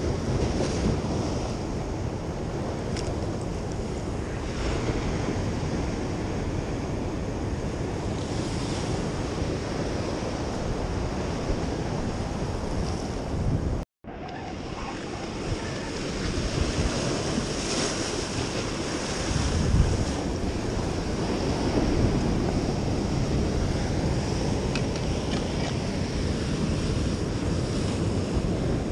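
Ocean surf washing against the rocks of a jetty, with wind buffeting the microphone. The sound cuts out for a moment about halfway through.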